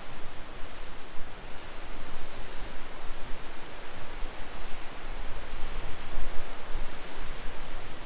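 Steady rushing of a waterfall tumbling down a rocky gorge below, with uneven low rumbling from wind buffeting the microphone.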